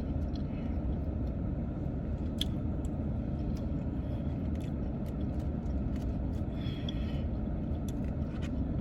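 Chewing and eating noises with scattered small clicks, over a steady low rumble inside a car.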